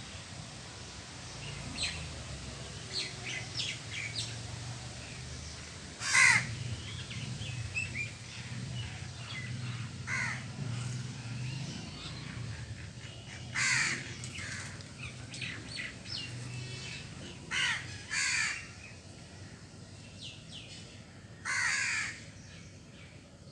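Crow cawing: about six loud, harsh caws spaced a few seconds apart, with fainter short calls in between.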